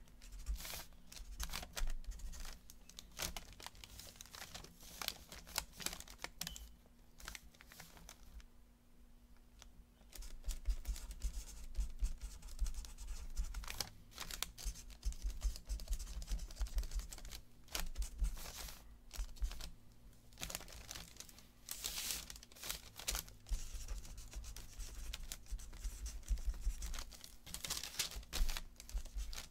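Felt-tip marker scratching across parchment paper in many quick, short strokes, with some rustling of the paper, briefly pausing before the strokes pick up again. A faint steady hum lies underneath.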